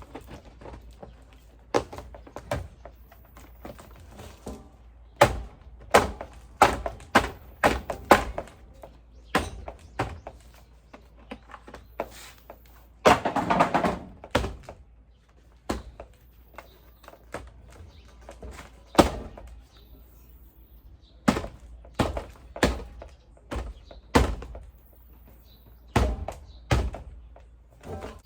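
A series of irregular knocks and thuds, with a short rasping burst about halfway through.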